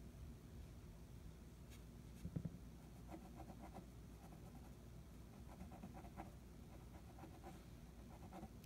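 Faint scratching of a pen drawing short strokes on paper, with a brief thump about two and a half seconds in.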